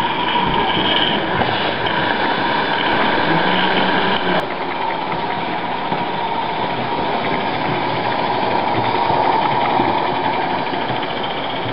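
Roundhouse Darj live-steam model locomotive running along its track under load, a steady busy mechanical clatter and hiss from its motion and wheels on the rails. The sound drops a little about four seconds in.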